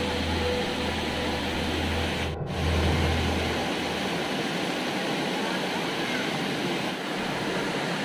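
Steady rush of a small waterfall cascading over rocks into a stream pool. The sound drops out for a moment about two and a half seconds in, and a low rumble beneath the water stops soon after.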